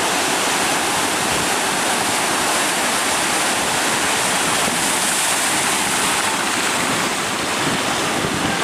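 Heavy ocean surf breaking, a loud continuous rush of churning water.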